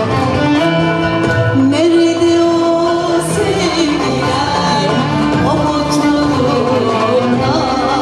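Turkish art music ensemble with violin and other instruments playing a song in makam Hüseyni, with a woman's voice singing long held, wavering notes.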